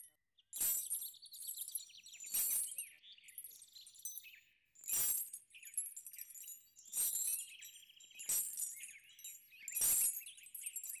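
Bells on a walking elephant jingling once with each slow stride, about every one and a half to two and a half seconds, with high chirping in between.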